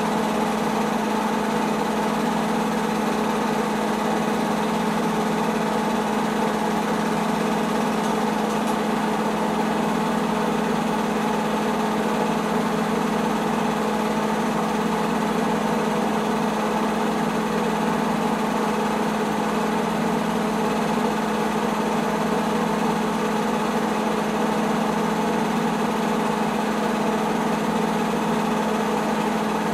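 Home-movie film projector running: a steady, unchanging mechanical hum.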